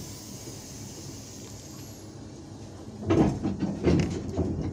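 A steady hiss that fades over the first couple of seconds, then two heavy metal clunks less than a second apart: the automatic coupler of a VL10 electric locomotive engaging the passenger car's coupler.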